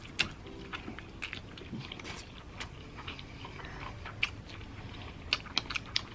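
Close-miked chewing and biting of spicy instant noodles, with scattered wet mouth clicks.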